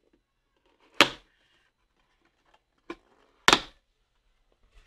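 Cardboard pet carrier box being pulled open: its top flaps tear free with short, sharp rips, a loud one about a second in, a smaller one just before three seconds, and another loud one at about three and a half seconds.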